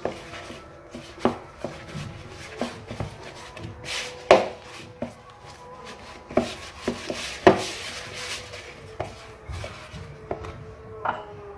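Hands kneading a soft, sticky bread dough in a plastic bowl: irregular dull knocks as the dough is pressed and pushed against the bowl, with rubbing between them and a few louder knocks about four and seven seconds in.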